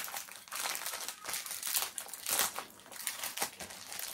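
Foil wrapping crinkling and rustling in irregular handfuls as it is pulled open by hand.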